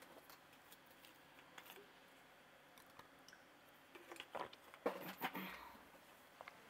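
Near silence: quiet room tone with a few faint scattered clicks, and a brief cluster of louder knocks and clicks about four to five seconds in.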